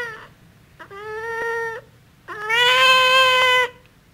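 Cat meowing twice: a shorter, quieter meow about a second in, then a longer, louder one, each held at a nearly steady pitch.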